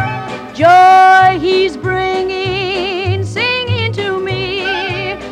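Background music: a cheerful song, with a voice holding long notes with vibrato over a bouncing bass line; the loudest is a high held note about a second in.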